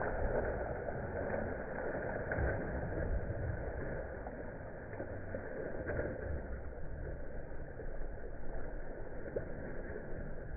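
A dog bounding through shallow river water, its legs splashing continuously, with a low rumble underneath; the splashing gets a little quieter after about four seconds as the dog moves farther out.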